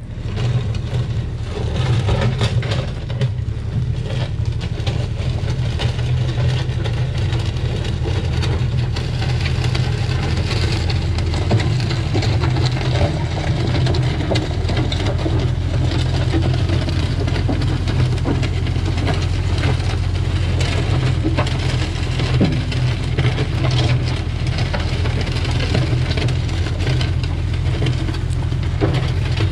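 Engine of an earthmoving machine running steadily while pushing dirt, with a few scattered knocks.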